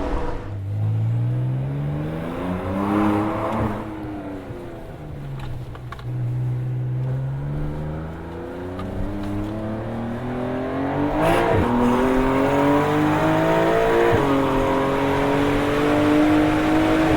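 Porsche 992 Carrera S twin-turbo flat-six with a Capristo valved exhaust, accelerating: the engine note rises, falls back, then climbs steadily, broken by two quick gear changes about 11 and 14 seconds in.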